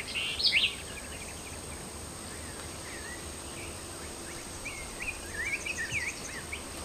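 Small birds chirping in short rising and falling notes over a steady outdoor hiss, a few chirps at the start and a run of them in the last couple of seconds.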